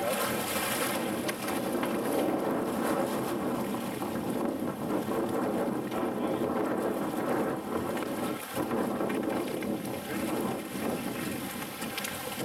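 Steady running noise of a fishing boat's engine and water washing along the hull, with the gaffed yellowfin tuna splashing in the churning water against the boat's side.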